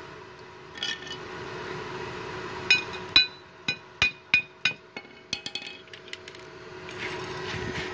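Hammer rapping the weld bead on a steel plate to knock off the welding slag: a quick run of about a dozen sharp, ringing metallic taps starting nearly three seconds in, over a steady hum.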